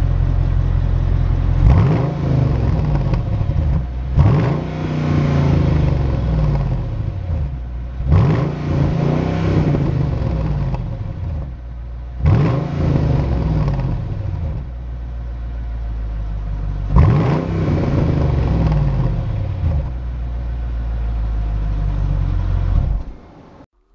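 Mercedes-Benz SL63 AMG's V8 exhaust with the car standing still: idling, then blipped sharply five times. Each rev jumps up and falls back to idle over a couple of seconds, with longer stretches of idle between the later ones.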